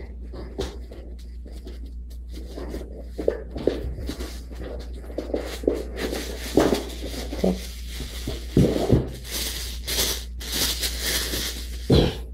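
Cardboard retail box and plastic wrapping being handled: scattered knocks and scrapes of the box, then plastic crinkling and rustling from about six seconds in, mixed with a few sharp taps.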